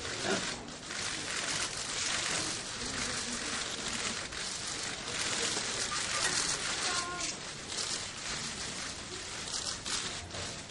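Press photographers' cameras firing rapidly, the shutter clicks overlapping into a steady crackle.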